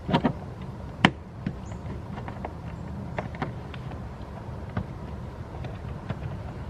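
Scattered sharp clicks and light knocks as the interior door panel of a 1992 Camaro is worked loose around its edge, with one loud snap about a second in, over a steady low hum.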